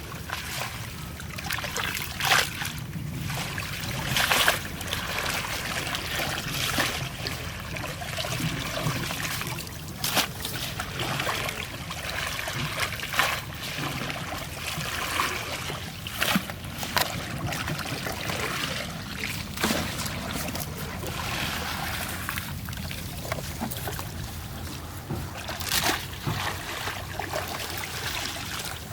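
Water splashing and trickling, with a steady wash of moving water broken by frequent short splashes.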